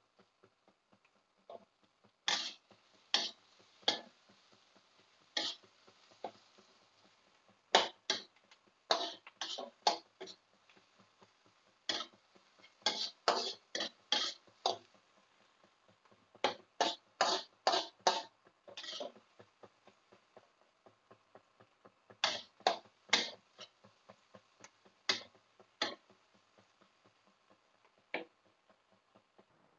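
Metal spatula clinking and scraping against a wok while stirring shallots frying in oil, in bursts of several sharp strokes with short pauses between. A faint sizzle of the frying oil lies underneath.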